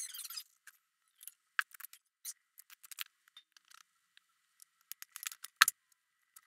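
A felt-tip marker scratching over paper at the start, then scattered small clicks and rustles as the camera is handled, with one sharp knock about five and a half seconds in.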